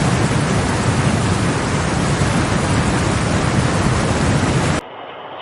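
Loud steady rush of water, an even roar with no pitch, cutting off abruptly near the end.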